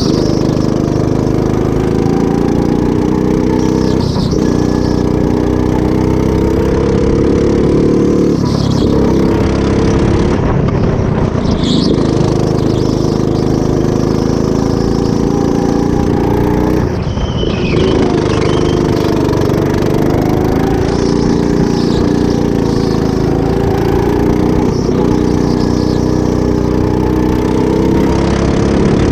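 Rental go-kart engine heard from the driver's seat, running at full throttle, its pitch climbing along the straights and dropping briefly several times as the driver lifts off for corners.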